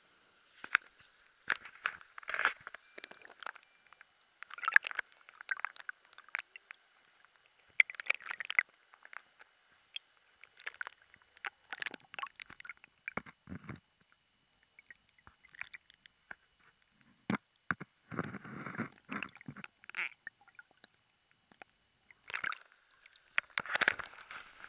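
River water sloshing and gurgling against an action camera held at and under the surface, heard in irregular bursts with knocks and handling noise on the camera body between quiet gaps.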